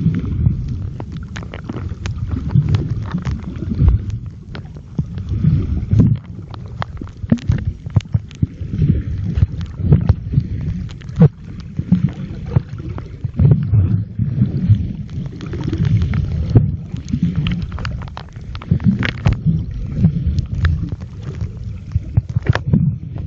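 Muffled low rumble of water moving around a mobile phone recording underwater, with frequent sharp clicks and knocks from the phone and its housing being handled.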